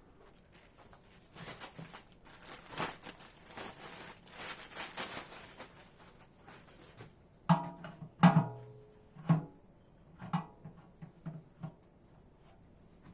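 Metal parts and tools being handled during a washing-machine drum repair: scraping and rustling for a few seconds, then four sharp metallic clanks that ring briefly, followed by a few lighter taps.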